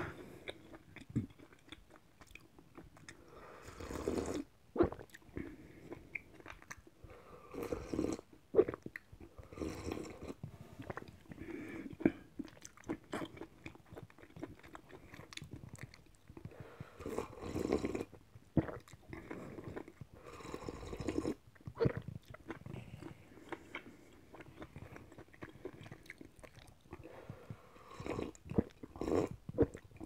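Close-miked mouth sounds of a person drinking ramen soup from a large glass: sips, gulps and swallows in irregular bursts, with sharp little clicks in between.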